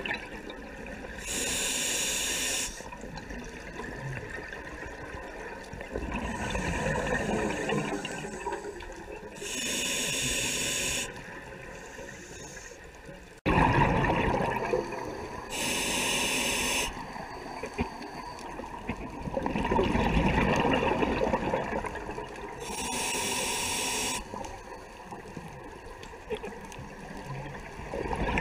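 Scuba diver breathing through a regulator underwater: a short hiss of inhaled air about every seven or eight seconds, alternating with longer gushes of exhaled bubbles.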